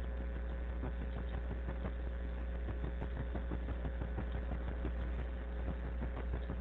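Steady low electrical hum with a faint constant tone above it and light hiss: the background noise of a voice recording during a pause in speech.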